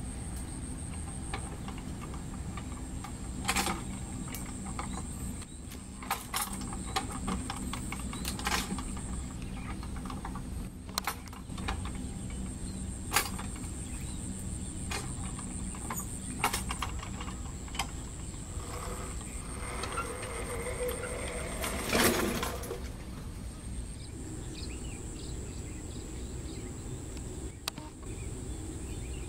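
Scattered metal clanks and knocks from a two-wheel hand tractor with muddy cage wheels being rolled down ramps off a trailer. The loudest clatter comes about three-quarters of the way through. Steady high insect chirring and a low rumble run underneath.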